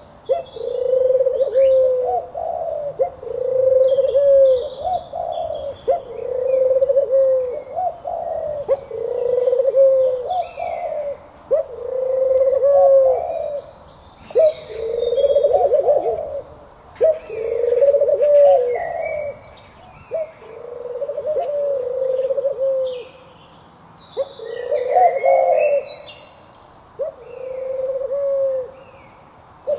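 A pigeon cooing over and over, one phrase about every two seconds, with smaller birds chirping higher and fainter.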